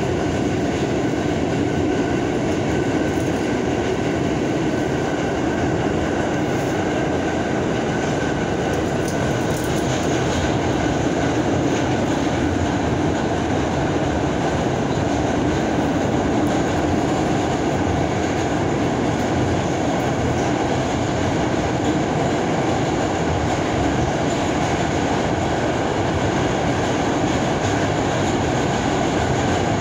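R46 subway train running at speed through a tunnel, heard from inside the car: a steady, loud rumble of wheels on rail with a faint steady whine above it.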